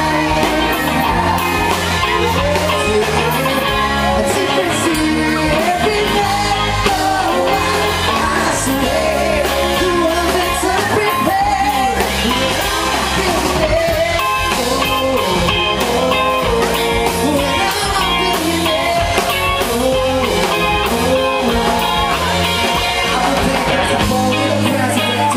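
Live band playing a rock song: singing over electric guitar, bass and drums, loud and unbroken.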